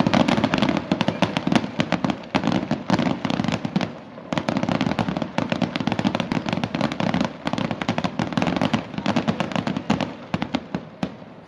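Fireworks display: a dense, rapid run of crackling pops from aerial shells, many per second, thinning out near the end.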